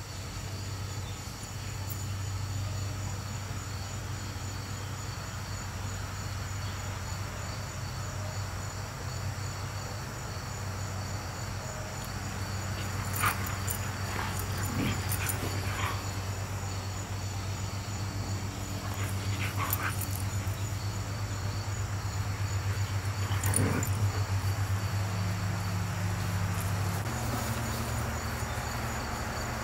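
A dog gives a few short barks through the middle and later part, over steady pulsing insect chirping.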